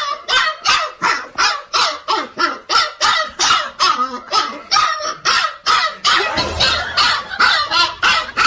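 A dog barking rapidly and without pause, about three sharp barks a second.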